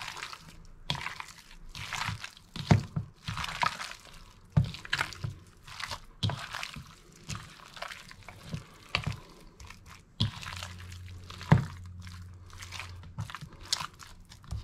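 Hands squishing and rubbing a thick, wet spice marinade into bone-in goat pieces in a ceramic bowl, with irregular squelches and a few sharper knocks.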